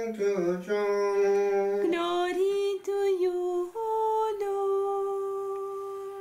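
Unaccompanied voice chanting a plainchant melody in long held notes that step up and down, ending on one long sustained note.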